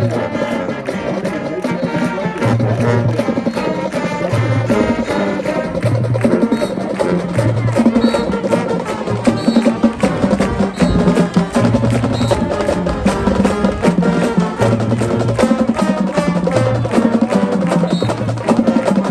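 Marching band playing, with a drumline keeping a steady, sharp clicking beat over low brass notes.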